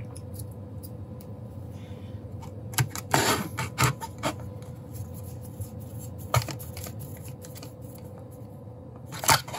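Small metallic clicks and taps of a hand screwdriver and an M3 screw being picked up and set into a brass threaded insert in a 3D-printed enclosure. There is a quick cluster of clicks about three to four seconds in, and single clicks later.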